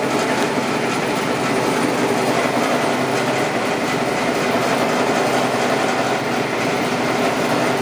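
Power saw running steadily while cutting rabbet joints into the ends of rough-sawn wooden hive boxes.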